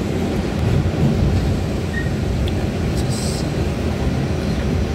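Steady low rumble of an R68A subway car running through a tunnel, heard from inside the car. A brief hiss comes about three seconds in.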